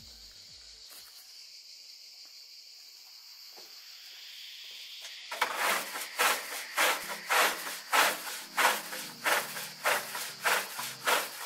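A faint steady high hiss, then from about five seconds in, rhythmic back-and-forth rubbing strokes on wood, about two a second.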